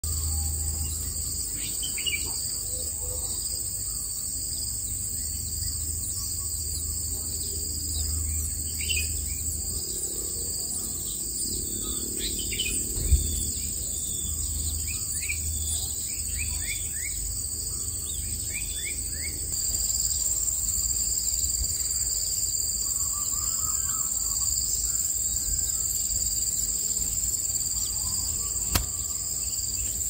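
Steady high-pitched insect drone, a little louder from about twenty seconds in, with short, high, falling bird chirps scattered through the first half and two sharp clicks.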